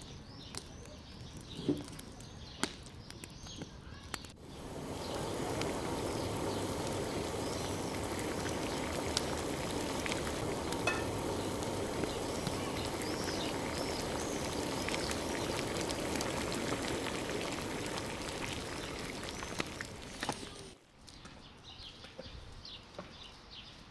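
Broth boiling hard in a large aluminium pot over a wood fire: a steady bubbling hiss that starts about four seconds in and cuts off a few seconds before the end. Before it, quieter crackles and small chirps.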